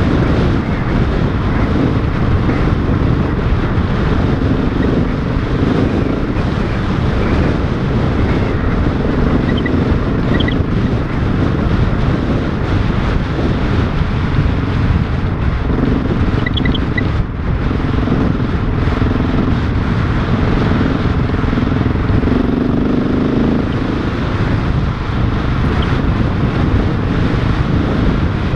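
Motorcycle engine running steadily while riding a gravel track, its note shifting a little with the throttle.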